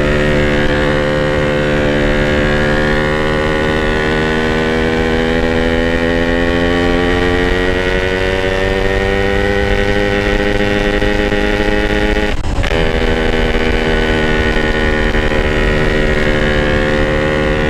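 Yamaha RX-King's 135 cc two-stroke single-cylinder engine pulling under load up a long gentle incline, through a modified stock exhaust. Its pitch rises slowly over the first twelve seconds, breaks off briefly, then holds steady.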